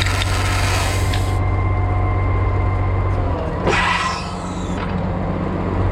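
Farm tractor engine running steadily under load, its note shifting about three seconds in. Two short bursts of hiss sound over it, one near the start and one about four seconds in.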